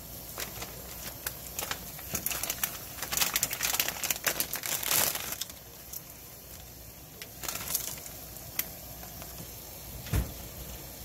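Plastic instant-noodle packet crinkling and crackling as it is handled, densest from about two to five seconds in, over water boiling in a frying pan. One dull knock near the end.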